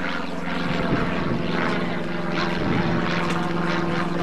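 A steady engine drone holding one pitch, with a rushing noise over it.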